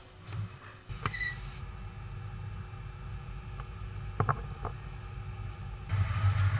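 Machinery running with a low steady hum, a few sharp clicks and knocks, and a louder hum setting in near the end.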